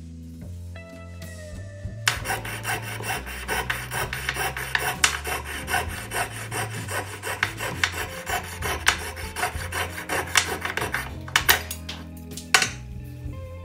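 Jeweler's saw cutting through a die-cast toy car body in quick back-and-forth rasping strokes. The strokes start about two seconds in and thin to a few separate ones near the end, over background music.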